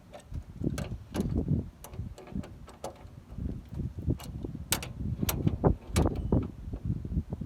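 Hand tools working on the steering rack mounts under a truck: irregular metallic clicks and knocks, several a second, with dull thumps in between.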